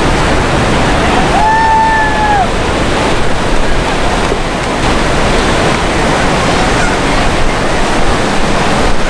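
A-10 Thunderbolt II's twin TF34 turbofan engines giving a loud, steady roar as the jet passes overhead. About a second and a half in, a brief whistle-like tone rises, holds and falls away.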